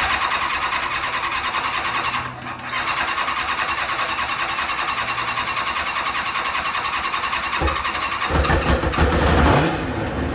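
2000 Kawasaki ZX-7R's inline-four turning over on the electric starter without starting, with a short break about two seconds in and louder, uneven low pulses near the end. The owner traces the failure to start to the fuel pump not being hooked up.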